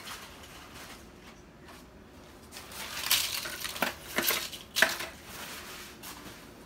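Kitchen items being handled at the counter: a stretch of rustling and clattering starting about three seconds in, with a few sharp knocks, the loudest near the end of it.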